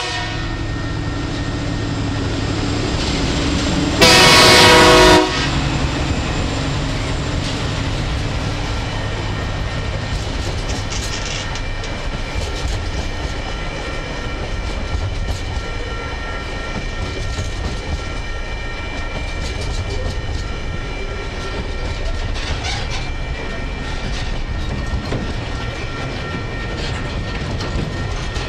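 TasRail diesel locomotive TR05 sounds its horn in one loud blast of about a second, about four seconds in, as a warning for the Relbia Road level crossing. Then a freight train of container and empty log wagons rolls past with a steady rumble and the clickety-clack of wheels over the rail joints.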